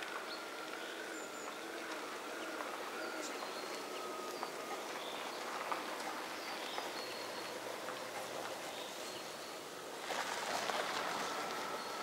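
Woodland ambience: scattered short high calls of small birds and a few faint sharp taps over a steady, slightly wavering distant hum, with a louder rustling hiss about ten seconds in.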